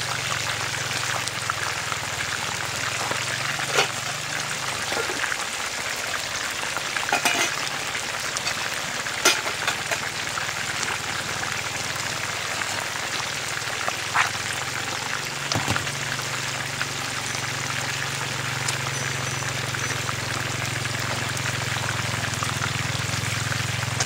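River fish frying in hot cooking oil in a pan: a steady sizzle broken by a few sharp pops of spitting oil.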